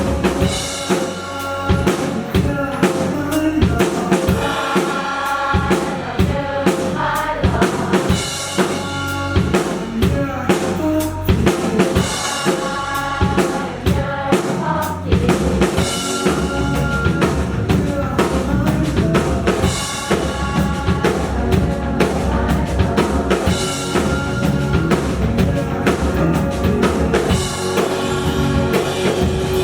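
Live rock band playing a song, with a steady drum-kit beat (bass drum and snare) under a sung melody.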